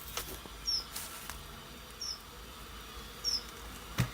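A few sharp knocks on a wooden beehive lid as it is knocked askew to let the bees back in, the loudest near the end. A short, high, falling chirp repeats about every second and a half.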